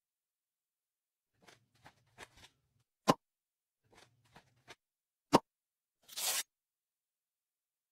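Makeup ASMR sound effects: light ticks and scratches of a makeup brush, two sharp clicks, one about three seconds in and one about five seconds in, then a short hiss of face spray near the end.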